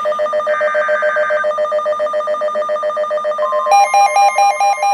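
Overlapping emergency alert tones from weather-alert receivers. A rapidly pulsing electronic alarm runs throughout, with a short screechy burst of SAME header data about half a second in. A steady attention tone joins about three and a half seconds in, then a louder warbling alarm.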